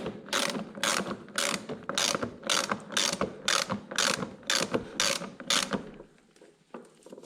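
Ratchet wrench clicking in quick, even strokes, about two a second, as the lock nut on a lawn mower wheel is run down and tightened; the ratcheting stops about six seconds in.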